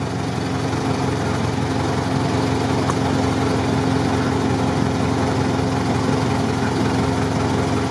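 GAZ-63 off-road truck's engine running steadily at low speed in low range as the truck wades a shallow muddy ford, with a constant low hum throughout.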